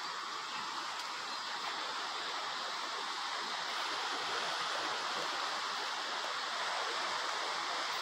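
Steady rushing of water at the river channel, an even hiss that grows slightly louder about three seconds in.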